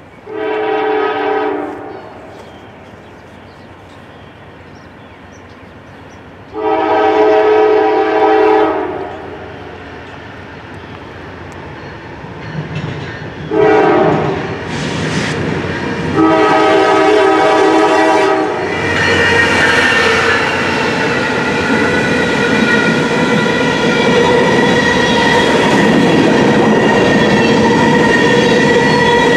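Norfolk Southern GE Dash 9-44CW locomotive's air horn sounding the grade-crossing signal: long, long, short, long. The grain train then passes at the crossing, a loud steady rolling noise from the locomotive and covered hopper cars, with held high tones over it.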